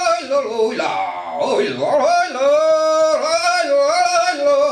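A man singing a Sámi joik, unaccompanied: long held notes that glide up and down between pitches, with short breaks between phrases.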